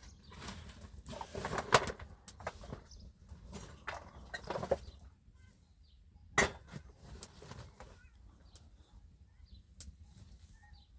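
Irregular knocks, clicks and rustling, with one sharp click about six seconds in, then quieter with faint short chirps.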